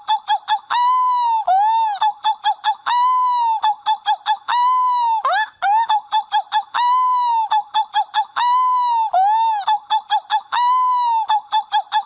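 Seagull calls repeated in a tight loop: a run of quick short yelps followed by a longer call that rises and falls in pitch, the cycle repeating about every two seconds.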